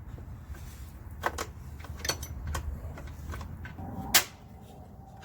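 Hand tools and bolts clicking and knocking as sissy bar mounting hardware is fitted and tightened on a motorcycle's rear fender: a wrench and Allen key working the bolts. Scattered sharp clicks with the loudest knock about four seconds in, over a low background rumble.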